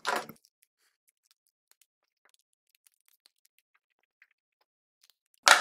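Very faint short scratches of a marker pen writing on a whiteboard, otherwise near silence.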